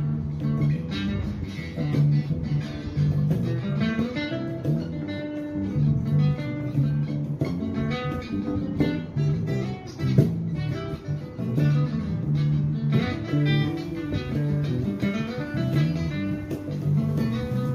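Acoustic guitar and electric bass guitar playing an upbeat instrumental praise song together: the bass carries strong low notes while the guitar plucks quick runs of notes above it.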